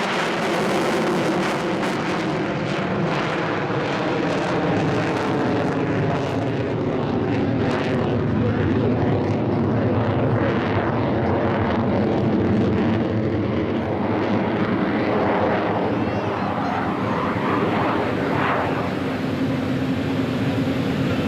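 Jet noise from a Boeing F/A-18F Super Hornet's twin General Electric F414 turbofan engines in a flying display: a steady roar, its pitch falling over the first couple of seconds as the jet passes.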